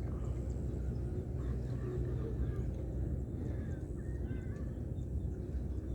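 A steady low rumble with faint, short bird chirps over it, clearest about four seconds in.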